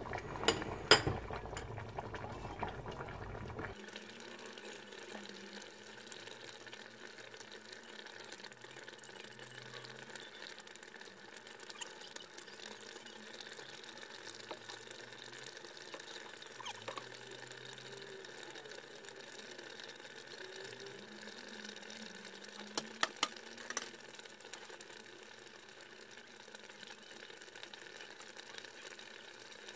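Serving up braised pork-bone and kimchi stew: a metal ladle and tongs clink now and then against the pot and an earthenware bowl while broth is scooped and poured, over a faint steady hum. The clearest knocks come about a second in and twice more near the end.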